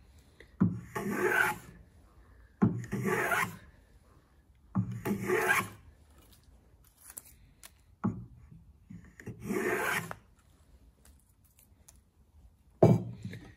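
Clifton No. 5.5 jack plane taking full-length strokes along the edge of a wooden workpiece to cut a chamfer: about five rasping swishes of a second or so each, the blade set for a fine cut and lifting long, clean shavings. A sharp knock near the end.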